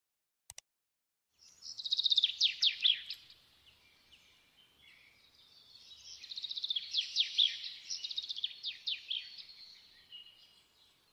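A small bird singing in long runs of rapid trills and quick falling chirps, starting a little over a second in, dropping away briefly about four seconds in, then singing again.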